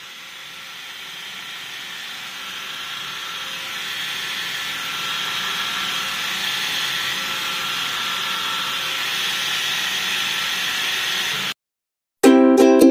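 Kemei KM-2530 rechargeable epilator running steadily, its small motor whirring as the head is worked over the underarm to pluck hairs from the root. The whir grows louder over the first few seconds and cuts off suddenly near the end.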